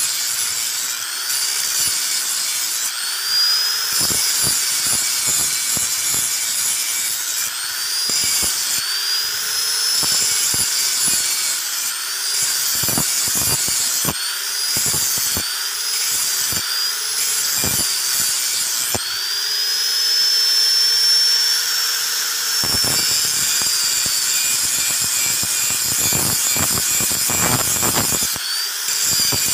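Electric angle grinder grinding a steel knife blade, its high whine bending in pitch with each pass every second or two as the disc bears on the metal, with scattered knocks.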